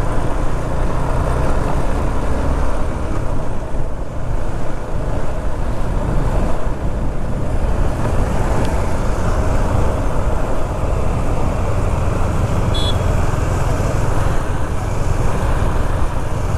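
KTM 390 Duke's single-cylinder engine running under steady wind rumble and traffic noise while riding in city traffic, heard on the rider's microphone. A short high beep sounds about 13 seconds in.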